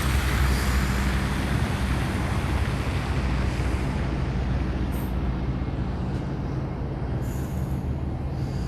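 Street traffic: a large vehicle's engine running with a steady low hum, under a broad rush of traffic noise that fades over the first few seconds.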